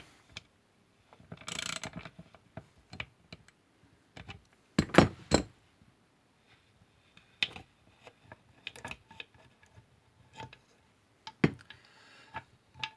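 Ratchet with a 15 mm deep socket undoing a chainsaw's oil pump outlet fitting: scattered metal clicks and clatter, with the loudest knocks about five seconds in and again near the end.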